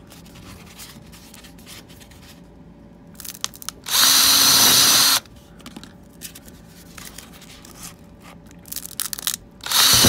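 Power drill boring through a paper-wrapped cardboard roll: one run of about a second, about four seconds in, and a second starting near the end. Faint clicks and rustles between the two.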